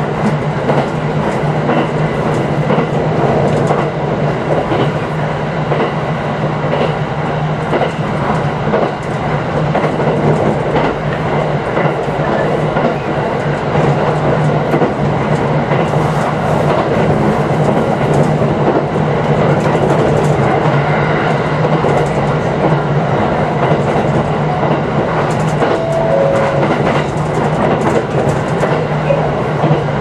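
JR East 701-series electric train running at steady speed, heard from inside its rear cab: wheels rumbling on the rails with scattered clicks over the track and a constant low hum.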